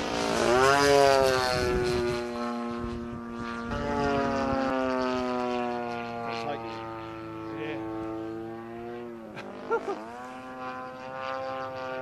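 DLE 30cc single-cylinder two-stroke petrol engine of a radio-controlled Fw 190A model in flight, running with its propeller. Its pitch climbs and it is loudest about a second in, then it holds fairly steady, dips and rises again about nine seconds in. Two brief sharp clicks come just after the dip.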